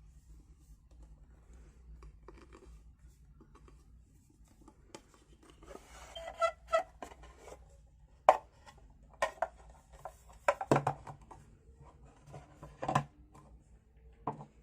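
Small objects being handled and set down indoors: scattered clicks, taps and a few sharper knocks, busier in the second half, over a low steady hum.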